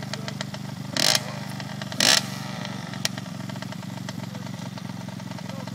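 Dirt bike engine running at a steady, even speed, with two short loud rushes of noise about one and two seconds in.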